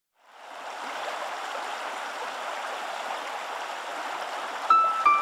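A steady, water-like rushing noise, like a stream, fading in as the opening of a background music track; about a second before the end, a few clear sustained musical notes begin over it.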